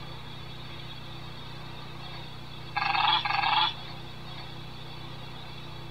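Recorded call of a male elephant seal played through a sound book's tiny speaker: a tinny, pulsing blare in two bursts close together, about a second in all, near the middle.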